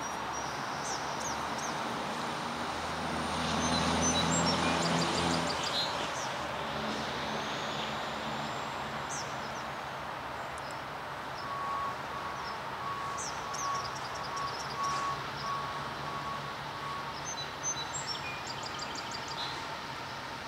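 Distant diesel freight locomotives rumbling under a steady outdoor hum, the low engine drone swelling about three to five seconds in. Songbirds chirp in several short bursts, and a run of evenly pulsed beeps sounds through the middle.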